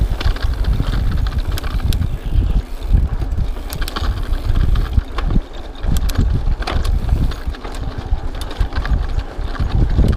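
Rockrider XC50 mountain bike riding fast over a rough dirt trail: wind buffeting the action camera's microphone with a steady low rumble, and frequent sharp clicks and rattles from the bike jolting over the ground.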